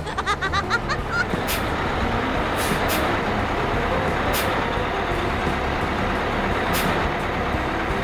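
Bus sound effect: a bus engine running steadily, with a few short air-brake-like hisses. A quick run of short rising chirps in the first second leads into it.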